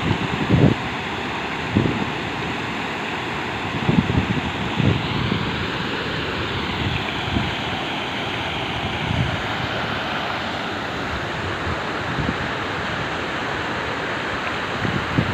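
Waterfall rushing steadily, with irregular gusts of wind buffeting the microphone.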